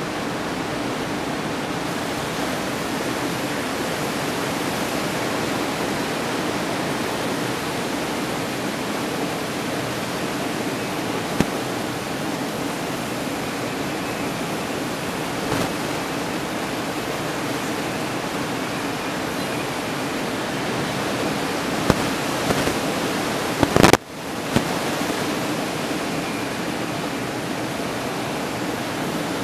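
Steady, even roar of breaking ocean surf. A few faint clicks, and one sharp knock about three-quarters of the way through, followed by a brief dip in the sound.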